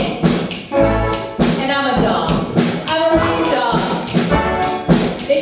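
Live stage song: voices singing over band accompaniment, with a low beat about once a second.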